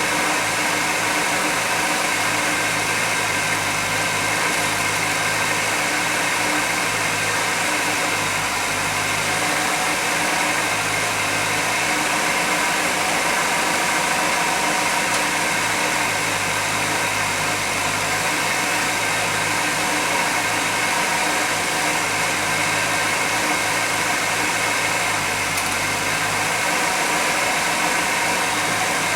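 1991 GMC Jimmy engine idling steadily under an even hiss; the engine is suspected of having a vacuum leak.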